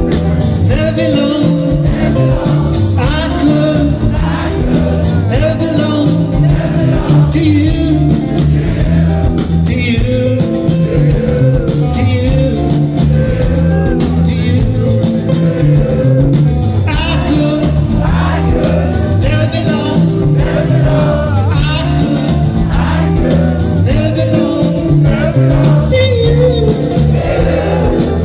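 Live band playing a song with acoustic guitars, electric bass and singing.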